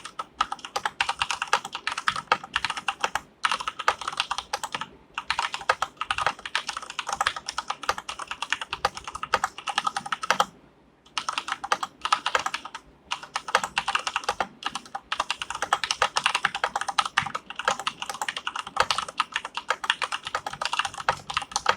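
Typing on a KB Paradise VX80 tenkeyless mechanical keyboard with Cherry MX Brown switches: a fast, continuous run of key clacks, with a pause of about a second about halfway through.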